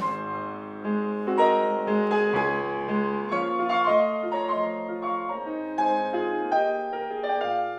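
Yamaha grand piano played slowly: sustained chords under a gentle melody line, each note struck and left to ring.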